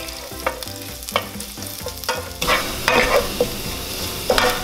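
Crushed garlic sizzling in hot oil in a nonstick pan as it toasts golden brown, stirred with a wooden spoon that scrapes and taps the pan bottom every half second or so. The sizzle grows louder about halfway through.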